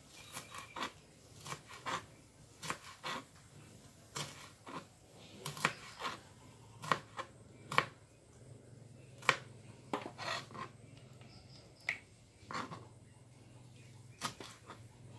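Kitchen knife slicing green chillies on a plastic cutting board: sharp, irregular taps of the blade hitting the board, about one or two a second.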